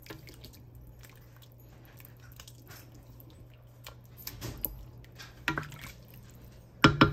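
Wooden spoon stirring a watery lamb stew in a steel wok: soft wet squishing and scraping over a low steady hum. A few sharp knocks against the metal pan come near the end.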